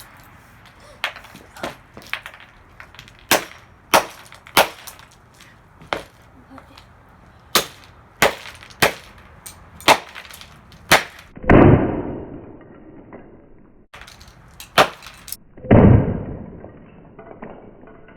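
A run of sharp knocks and clinks from the broken plastic and glass pieces of a smashed clock radio, then two much louder crashes that ring on for about a second each.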